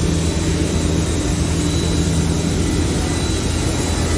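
Steady drone of woodworking factory machinery, with a low hum and a faint high whine.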